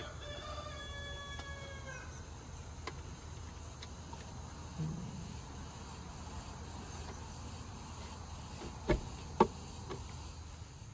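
Two sharp metallic clunks near the end as a plug-in electric meter is pushed home into the meter socket's jaws, after a few lighter clicks of the meter being handled. A steady background of insects chirring and a low hum runs underneath.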